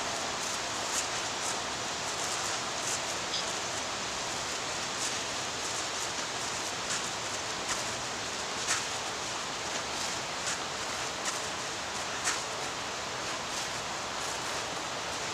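Steady hiss with scattered soft clicks and crackles at irregular intervals, roughly one a second, two of them louder: one a little past halfway and one toward the end.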